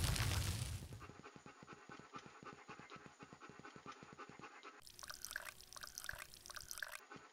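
Dog panting rapidly, about five breaths a second, after a loud noisy rush fades out in the first second.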